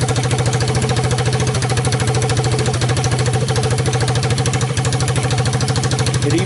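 A 1986 Honda TRX200SX air-cooled single-cylinder four-stroke engine idling steadily on choke just after a cold start, with a rapid, even exhaust beat.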